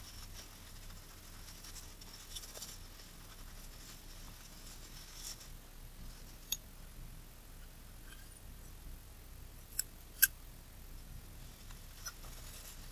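Small lens parts handled on a work surface: faint rustling and scraping with a few light, sharp clicks, the loudest about ten seconds in.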